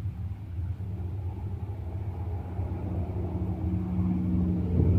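Diesel locomotive hauling a cement freight train approaching, its engine a low steady drone that grows slowly louder.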